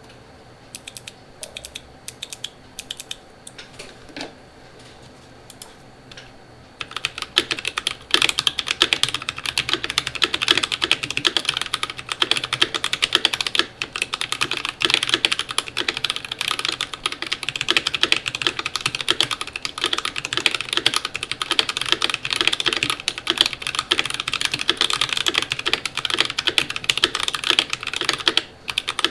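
Keychron V5 mechanical keyboard with lubed Akko Jelly Blue switches on an aluminium plate and GMK keycaps being typed on. A few scattered keystrokes give way, about seven seconds in, to fast continuous typing.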